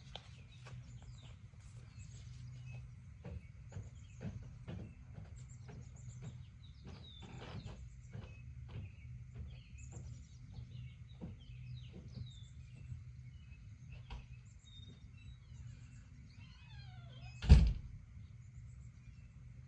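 Scattered small clicks and ticks over a steady low hum, with short high chirps here and there, and one sharp thump about seventeen seconds in, the loudest sound.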